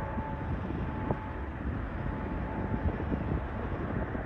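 Steady rumble of jet airliner engines with wind buffeting the microphone; a faint engine whine fades out in the first half second.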